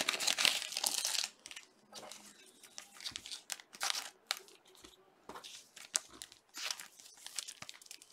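Plastic trading-card packaging crinkling in the hands: a loud burst of crinkling in the first second, then scattered soft rustles and light clicks as the cards are handled.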